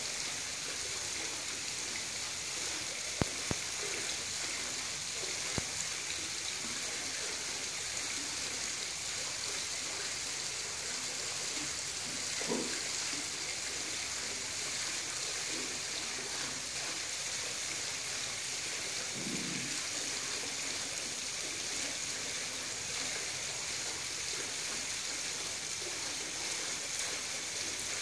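Steady high-pitched outdoor hiss like running water, with a few faint clicks and two brief low sounds partway through.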